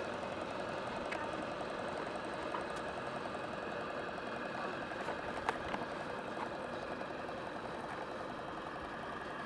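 Small model steam engine of a radio-controlled African Queen steamboat replica running steadily with a rapid, even mechanical beat. A couple of faint clicks come a little past halfway.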